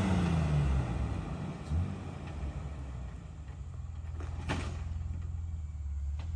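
Jeep engine running at low revs while crawling a rock obstacle. The revs drop away in the first second, and there is one sharp knock about four and a half seconds in.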